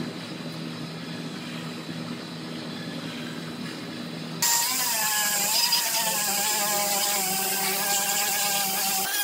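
Pneumatic air tool spinning a stripping disc against a car door panel, starting suddenly about four seconds in with a loud high-speed whine whose pitch wavers as it is pressed on. Before it, a quieter steady hum.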